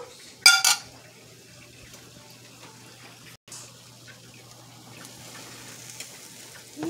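Beaten egg sizzling faintly in a hot griddle pan around breaded eggplant halves, over a steady low hum. About half a second in come two short, loud high-pitched sounds.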